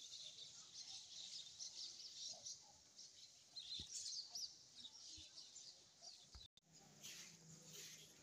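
Faint chirping of small birds: many short, high chirps overlapping one another, the sound cutting out for a moment about six and a half seconds in.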